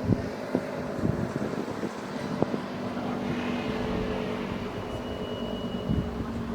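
Elektror L1/F2 electric motor siren sounding a steady, unwavering tone heard from a distance, with gusts of wind thumping on the microphone.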